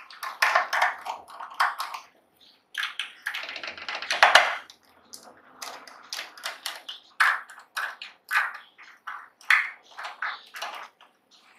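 Small screwdriver and fingers working on a laptop hard disk's metal top cover: an irregular run of sharp clicks and taps, with a denser stretch of scraping about three to four seconds in.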